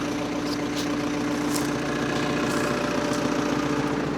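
Excavator diesel engine running steadily, with a held hum and a few light clicks over it.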